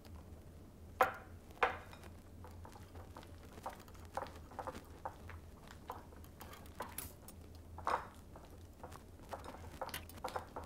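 Spatula scraping and clinking against glass bowls as sour cream is scooped in and stirred into a thick cream-cheese mixture: scattered soft clicks and scrapes, with a few sharper knocks about a second in and again later, over a low steady hum.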